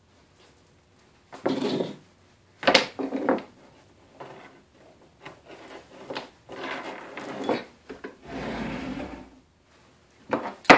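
A saw chain and bar being handled while they are fitted to a chainsaw: irregular scraping and rattling, with a sharp click about three seconds in and another near the end.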